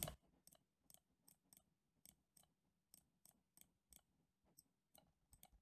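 Near silence with faint, irregular computer mouse clicks, a few a second.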